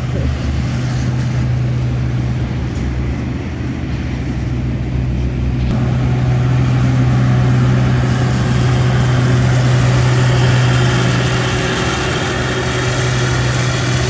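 Steady low drone of a heavy farm vehicle's engine running. A louder rushing noise builds about six seconds in and eases off slightly near the end, as a vehicle moves nearby.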